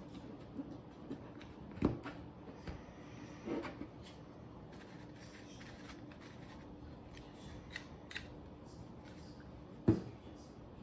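3D-printed plastic parts handled on a tabletop: light clicks and rubbing, with a few short knocks as pieces touch the table. The loudest knock comes near the end, as the geared frame is set down.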